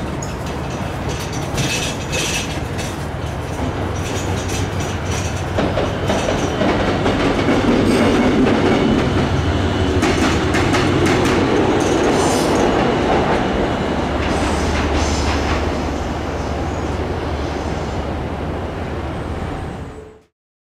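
JR Freight DF200 diesel-electric locomotive passing through the station: a steady low engine hum and rail rumble with wheels clattering over the rail joints. The sound builds to its loudest around the middle, eases off, and cuts off suddenly near the end.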